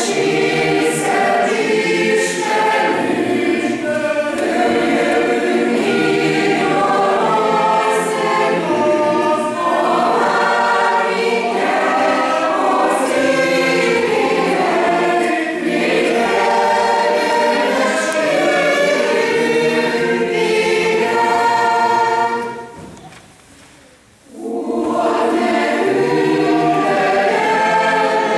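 Mixed choir of women's and men's voices singing together. The singing breaks off for about two seconds late on, then starts again.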